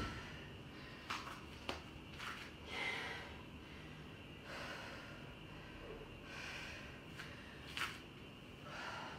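A woman breathing hard and catching her breath after exertion, with a few short light clicks and knocks.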